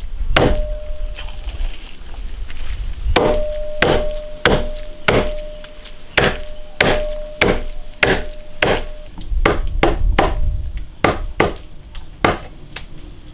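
Cleaver chopping raw pork fat on a thick wooden chopping block: one knock, a pause of a couple of seconds, then a regular run of knocks about two a second that quickens towards the end.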